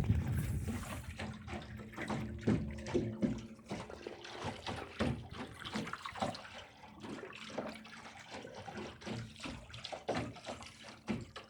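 Ripples gurgling and lapping around the bow of a small sailboat under way, in quick, irregular little splashes.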